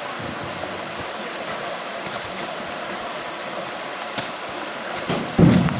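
Shallow stream rushing steadily over rocks, with a few light knocks and a louder thump near the end.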